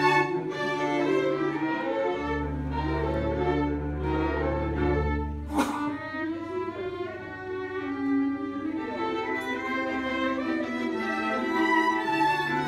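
Chamber string orchestra playing classical music, with violins over cellos and a low sustained bass line. A single sharp click comes about halfway through.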